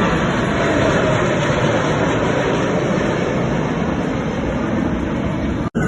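Jet aircraft flying past: a loud, steady roar with a faint tone that slowly falls in pitch. The sound drops out abruptly for an instant near the end.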